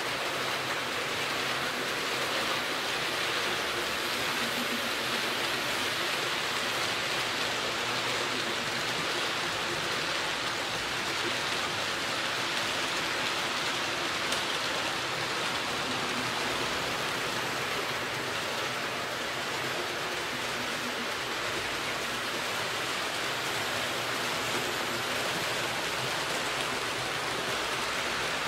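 HO-scale model freight trains rolling along the track: a steady, even rushing hiss of many small metal wheels on the rails as the cars pass.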